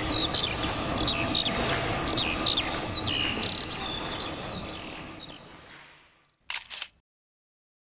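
Birds chirping over open-air background noise, the whole fading out after about five seconds; then a camera shutter clicks twice in quick succession near the end.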